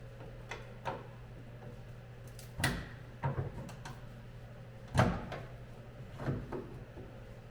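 Scattered clunks and knocks of hand work under a truck while its fuel tank is being taken down, the loudest about five seconds in, over a steady low hum.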